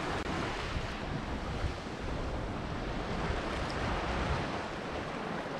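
Sea water washing against a rocky shore in a steady rush, with wind rumbling on the microphone.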